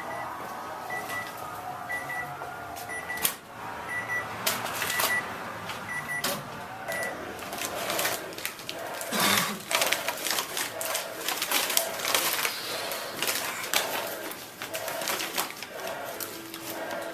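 Short electronic beeps at one pitch, repeating about once a second through the first half, typical of a microwave oven. Then the paper bag of microwave popcorn rustles and crinkles as it is torn open.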